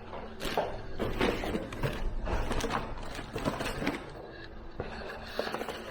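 Irregular clicks, knocks and scrapes of rack-mount network equipment being handled, thickest through the first four seconds or so.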